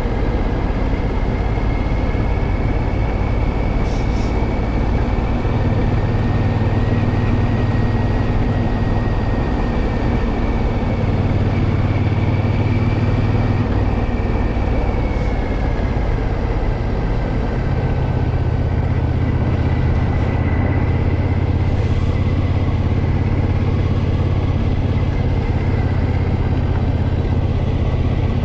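Triumph Scrambler 900's parallel-twin engine running under way on the road, its low note swelling and easing several times with the throttle, with steady road and wind rush over it.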